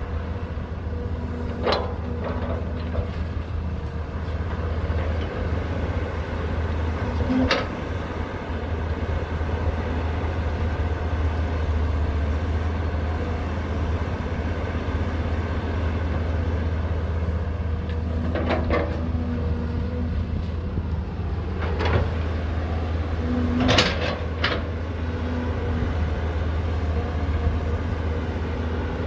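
Diesel engine of a Cat 320 GC excavator running steadily with a low rumble, with several sharp clanks scattered through, the loudest near the end.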